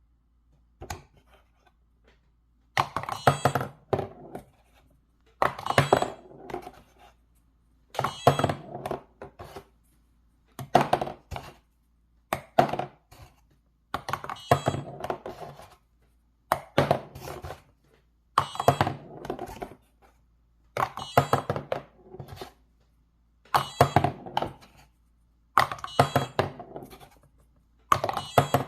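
Toy basketball shooting machine built from plastic building bricks, working over and over. A cluster of plastic clattering knocks comes about every two and a half seconds, as the mechanism fires a ball and the ball strikes and bounces.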